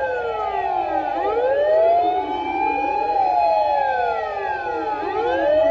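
Several fire engines' sirens wailing together on an emergency run, each sweeping slowly up and down in pitch out of step with the others, so the wails overlap and cross.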